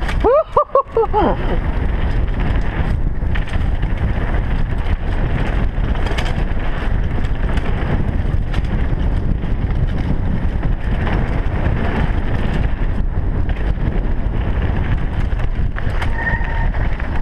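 Wind buffeting a helmet-mounted camera and knobby tyres rattling over a dirt downhill trail as a mountain bike descends at speed. A short wavering whoop sounds about half a second in, and a brief steady brake squeal comes near the end as the bike slows onto flat gravel.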